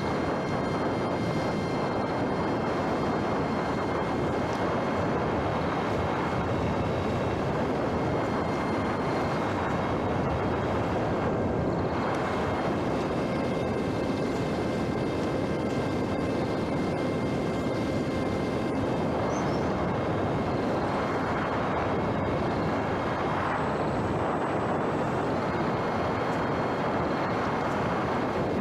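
A small electric radio-control airplane's motor and propeller running in flight: a steady whine over a dense rushing noise. The whine eases briefly about 11 seconds in, then picks up again.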